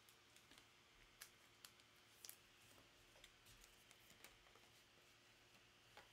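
Near silence with a few faint, scattered clicks and ticks of trading cards being handled.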